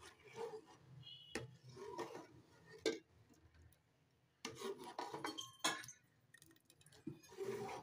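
Steel spoon scraping along the bottom and sides of a steel pot as thickening milk-and-rice kheer is stirred, with a few sharp clinks of metal on metal and a short quiet pause partway through. The constant stirring keeps the thickening milk from sticking to the pot.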